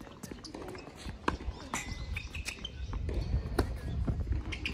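Tennis ball struck by rackets and bouncing on a hard court during a rally: sharp hits, the loudest about a second in and again past the middle, with birds chirping and a low rumble.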